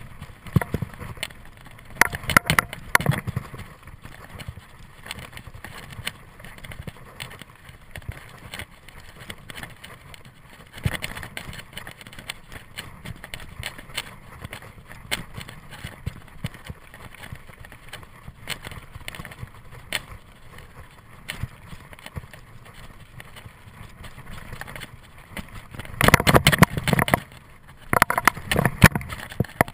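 Mountain bike riding over a rough dirt trail: a constant clatter of short clicks and knocks from the bike jolting over bumps, with louder stretches of rattling about two seconds in and again near the end.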